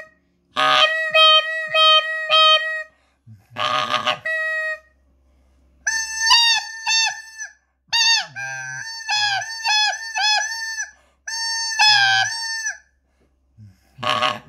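Breite 'Korrektor' mouth-blown game call played in short pitched notes. A quick run of five notes comes first, then a rough, noisy blast about four seconds in. From about six seconds, a second set of higher notes bends up and down in pitch, a different voice of the same call.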